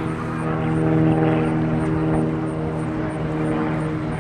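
A steady, fairly loud engine drone holding one low pitch.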